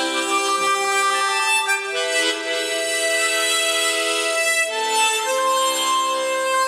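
A trio of harmonicas playing a slow melody in harmony, with long held notes. The chord changes about two seconds in and again near five seconds.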